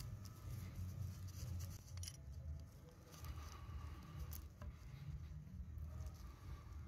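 Faint handling sounds of gloved hands working an exhaust pressure sensor and its rubber pipe, with a few small sharp clicks, about two seconds in and again a little after four seconds, over a low rumble.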